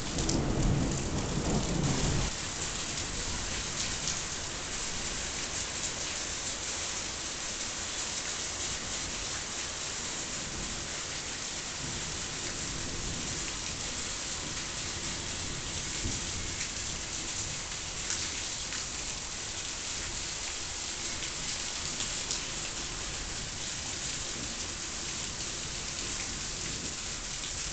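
Rain falling steadily, with a loud low rumble of thunder in the first two seconds that fades into the rain.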